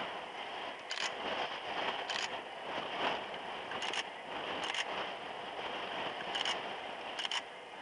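A camera's shutter clicking about six times at uneven intervals of roughly a second, over a steady rushing background noise.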